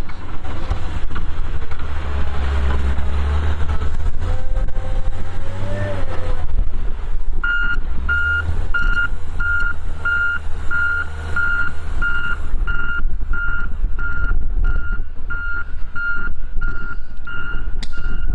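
A heavy vehicle's engine running, its pitch rising and falling in the first few seconds. From about seven seconds in, a reversing alarm beeps steadily about twice a second over the engine.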